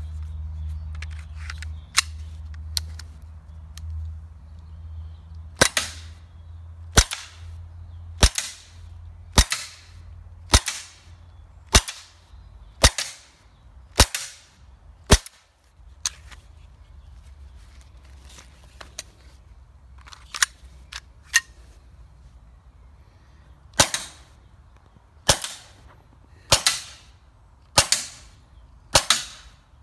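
Umarex Walther PPQ M2 .43-calibre CO2 pistol firing powder balls with strong blowback: sharp shots about one a second, a pause of several seconds partway through, then a further string of shots.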